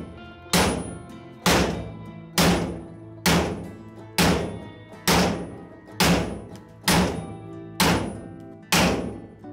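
Ten hammer blows, about one a second, each ringing briefly, driving a rusted threaded bolt down out of the plate of an old blacksmith's leg vise. Background music plays underneath.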